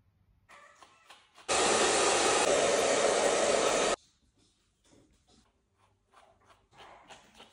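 Hair dryer blowing steadily for about two and a half seconds, starting and cutting off abruptly, during a puppy's grooming. Faint clicks and rustles come before and after it.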